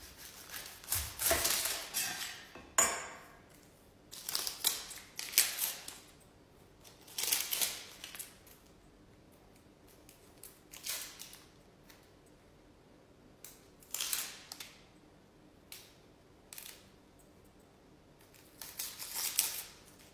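A knife cutting through a red onion onto a cutting board, then the onion's dry papery skin being peeled off by hand, crackling in a string of short bursts with pauses between.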